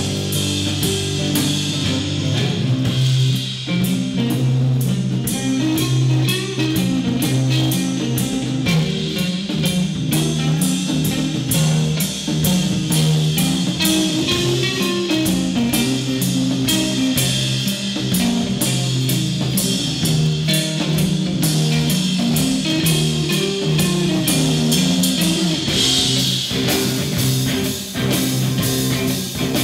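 Rock band playing live: drum kit with dense steady hits under bass guitar and electric guitar.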